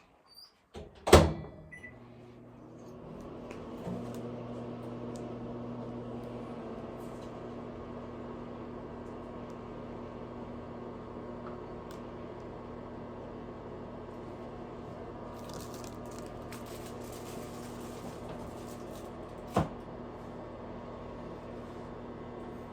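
A loud clack, then a microwave oven starts up and runs with a steady hum while heating a bag of microwave popcorn. There is a brief hiss late on and a single sharp click near the end.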